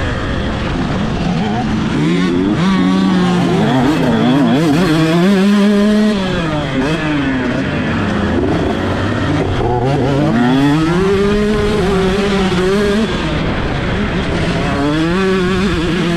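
Two-stroke 125cc motocross bike engine heard from on board at full throttle. It revs up through the gears and drops back several times, climbing about two, four, ten and fifteen seconds in and falling away around six and thirteen seconds, with wind rushing over the microphone.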